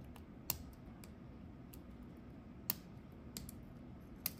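A steel lock pick and tension tool working the pins of a Kwikset pin-tumbler lock during single pin picking, giving a few faint, sharp clicks at irregular intervals.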